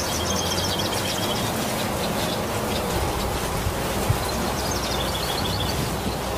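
Steady rain falling on broad leaves and foliage. A bird's rapid high chirping trill at the start and again about five seconds in.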